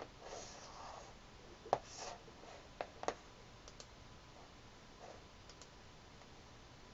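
Several faint clicks and taps at a computer's mouse and keyboard, the loudest a little under two seconds in, with brief soft rustling between them.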